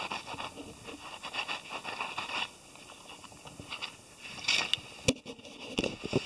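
Scraping, scratching and rattling in a wire-mesh cage trap holding a captured raccoon, as the animal shifts and the cage is prodded. There is a sharp click just after five seconds in and a few thumps near the end.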